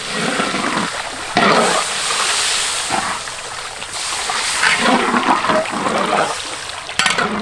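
A stream of water from a hose pouring steadily into a large iron wok and splashing into the fried meat and oil.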